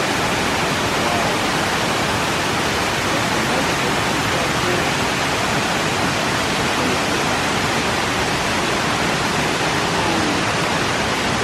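Waterfall roaring as a steady, even rush of falling water.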